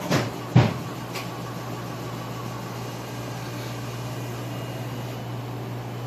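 Two short knocks in the first second, then a steady low mechanical hum.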